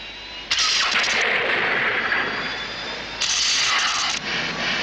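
Loud rushing, blast-like science-fiction sound effect as the spacecraft runs into trouble over the disposal area: a sudden surge cuts in about half a second in and a second one about three seconds in, over the craft's steady hum.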